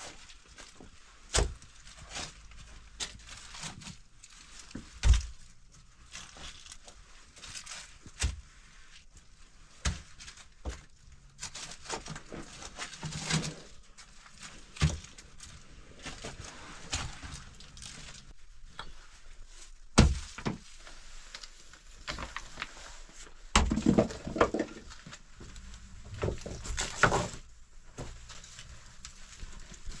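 Loose rocks being picked up and tossed aside by hand, knocking against stone about a dozen times at irregular intervals, with gravel scraping and crunching in between.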